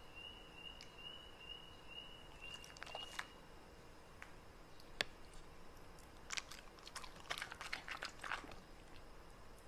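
Crisp crackling and snapping of a fresh napa cabbage leaf being broken by hand on a wooden cutting board: a quick run of faint cracks near the end, after a single sharp tick about halfway through.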